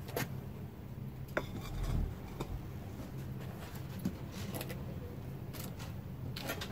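A handful of light metallic clinks and knocks, spaced irregularly, with a dull thump about two seconds in, over a steady low hum.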